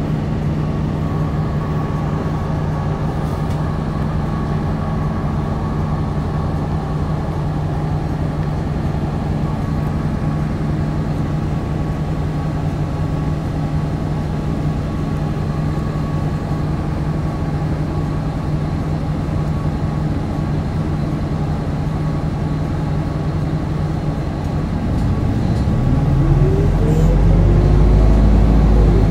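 Route bus's diesel engine running at a steady note, then revving up about 25 seconds in, rising in pitch and getting louder as the bus accelerates.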